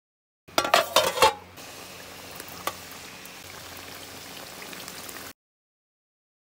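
A metal ladle clanks against the metal karahi in a quick run of strikes about half a second in. Then raw chicken pieces fry steadily in hot oil, sizzling, with one faint tick near the middle.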